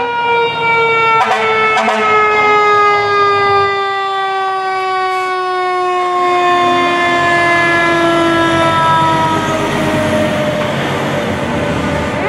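Responding fire apparatus sounding a long, held warning tone that slowly slides down in pitch as the truck approaches and passes. There are two short sharp blips about half a second apart just over a second in, and a fresh tone starts abruptly at the very end.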